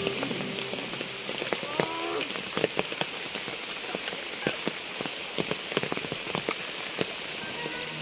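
Heavy rain falling in rainforest, a steady hiss with many separate raindrops tapping close by.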